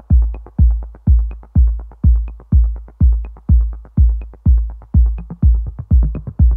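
Electronic background music with a steady kick-drum beat, about two beats a second, and light ticks above it.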